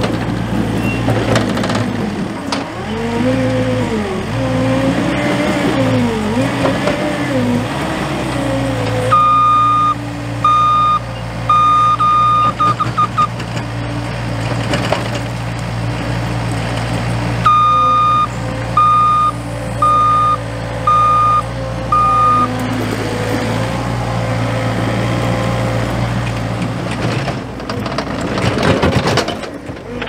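John Deere 317G compact track loader's diesel engine running under load, its pitch rising and falling as it works the bucket early on. Its reverse alarm beeps in two runs, about a third and two thirds of the way through, as the machine backs up.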